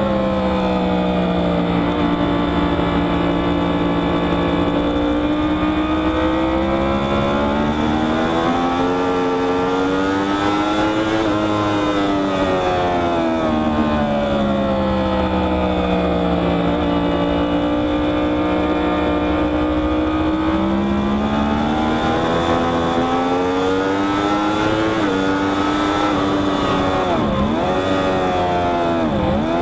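Onboard sound of a Yamaha R1's crossplane inline-four at high speed on track, with wind rush. The engine note falls and rises in long sweeps as speed drops and builds through the corners, and dips sharply twice near the end.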